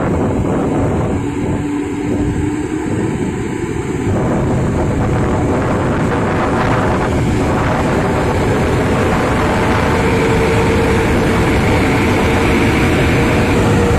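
EP09 electric locomotive and its passenger coaches moving off slowly: a loud steady rumble of wheels and running gear that grows a little louder, with a faint whine that rises slightly in pitch from about eight seconds in.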